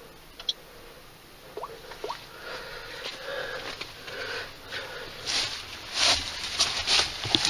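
A person moving close to the microphone: rustling and scuffing with sniffing breaths, a couple of brief squeaks early on, then a run of louder noisy bursts in the second half.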